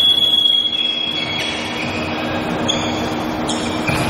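Volleyball referee's whistle blown once: a long, steady, high-pitched blast that starts sharply and fades after about a second and a half, signalling the serve. A ball strike follows near the end, over a steady low hum of the hall.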